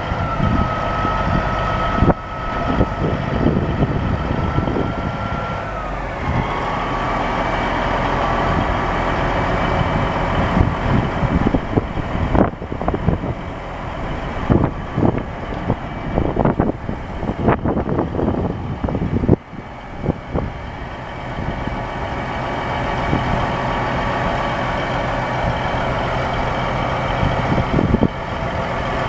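Dump truck's Caterpillar 3406 inline-six diesel running at idle, with a steady high whine over it. The whine drops in pitch about five seconds in and comes back higher a second later. Through the middle stretch, irregular rattles and knocks come and go over the engine sound.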